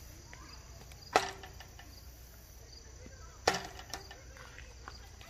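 Outdoor ambience with insects chirping, broken by two sharp clicks about two seconds apart.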